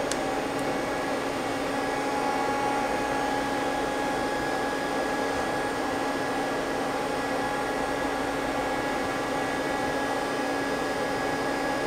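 Steady machine hum and hiss with several fixed tones underneath, unchanging throughout, from a powered-up CNC lathe idling with no cutting going on.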